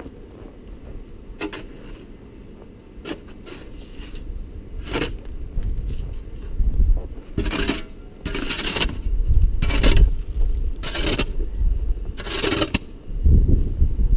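Snow shovel scraping and pushing light, fluffy snow in a series of short strokes, faint at first and louder and more frequent through the second half, with wind rumbling on the microphone.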